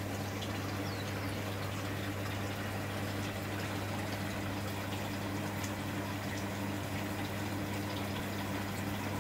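Aquarium pump humming steadily, with bubbling and trickling water in the tank as a constant hiss over the hum.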